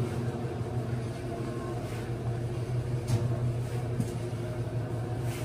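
A steady low mechanical hum, with a few faint knocks.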